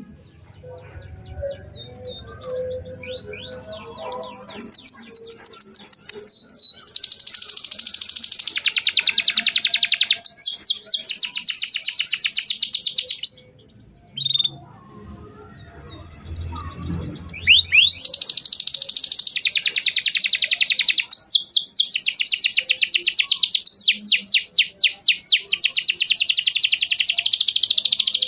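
Domestic canary singing long, fast trills of rapidly repeated chirping notes. The song breaks off briefly about fourteen seconds in and then resumes.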